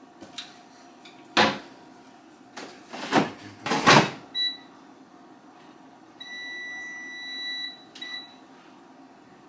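A few hard clunks as an air fryer is loaded and shut, then the air fryer's control panel beeping: a short beep, a long steady beep of about a second and a half, then a click and another short beep as it is set to cook.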